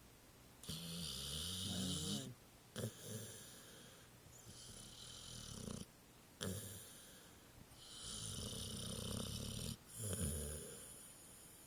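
Pit bull snoring in its sleep: three long rasping snores, each followed by a short sharp breath, repeating about every three to four seconds. The first snore carries a wavering pitched tone.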